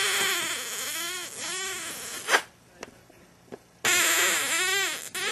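Border Collie puppy whining: a few breathy, rising-and-falling cries in two spells, with a short quiet pause between them.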